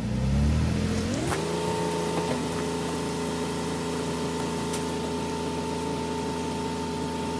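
Jeep Wrangler JK engine being raised from idle: its pitch climbs over about a second, then holds steady at a fast idle of about 1500 RPM, set to spin the belt-driven onboard air compressor faster. A few light clicks over the engine.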